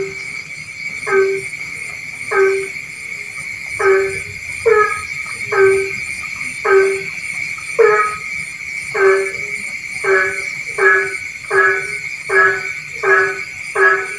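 Rice-field frogs at night, one frog giving short nasal, honking croaks over and over, about fourteen calls that come a little faster toward the end. Behind them runs a steady high-pitched drone.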